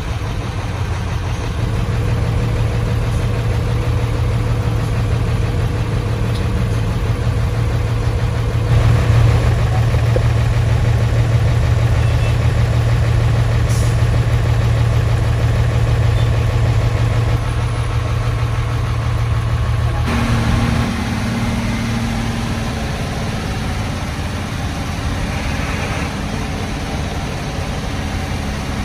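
Old Hino diesel bus engine running with its loud, growling exhaust, heard from inside the bus. The engine note is steady and louder through most of the stretch, then drops about twenty seconds in as the engine eases off.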